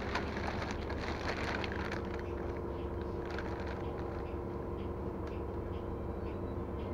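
Steady low rumble and drone of a city bus heard from inside the cabin, with scattered light rattles, most of them in the first couple of seconds.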